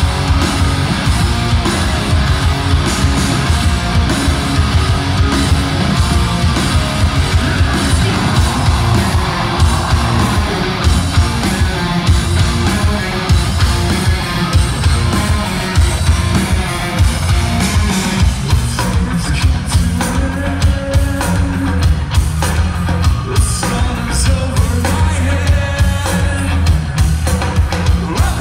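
Hard rock band playing live through a concert PA: heavy distorted electric guitars, a pounding drum kit and a singer, loud and dense. The drums and cymbals come through harder in the second half.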